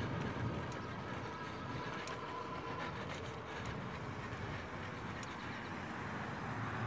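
Electric bike in motion: a faint steady whine from the 500-watt motor over the rumble of narrow street tyres rolling on pavement, with a few sharp clicks.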